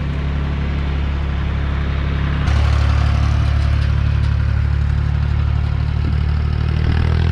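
Farm tractor pulling a trailer, its engine running with a steady low drone and clatter as it passes; the sound steps up in level about two and a half seconds in.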